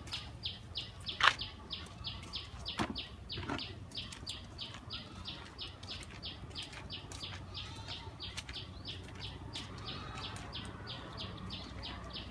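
A steady, even train of short high chirps, about four a second, with a few short knocks about one, three and three and a half seconds in, over a low steady hum.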